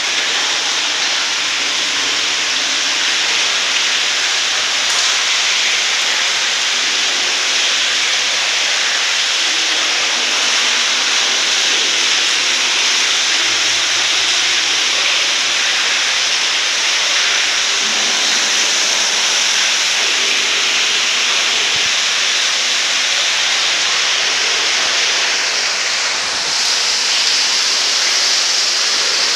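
Water jetting from a 1½-inch float-valve inlet into a concrete water tank, a loud, steady hiss: the ball float hangs low, so the valve is open and the tank is filling. The hiss dips briefly near the end.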